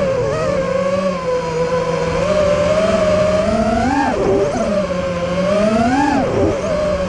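Electric motors and propellers of a small radio-controlled drone, heard from its onboard camera: a steady whine that swells up in pitch twice, about four and six seconds in, as the motors speed up, then settles back.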